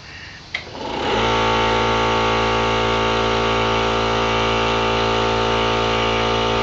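Air compressor kicking on with a click and then running steadily, its motor starting about a second in as it supplies air through the hose to inflate a lawn tractor tire.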